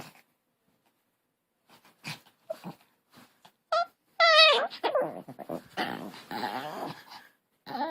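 A dog vocalising. After a few short grunts, it gives a loud, wavering, high-pitched call about four seconds in, then several seconds of rough, noisy growl-like vocalising.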